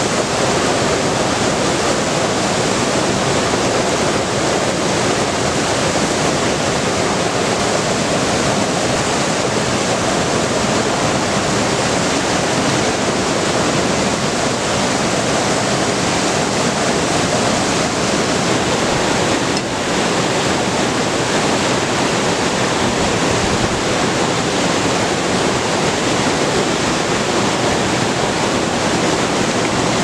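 Steady rush of a fast-flowing stream running over rocks.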